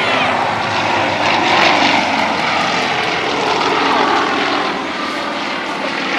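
Propeller engines of several radial-engined aerobatic planes flying in close formation, a steady drone that shifts up and down in pitch as the formation passes and climbs.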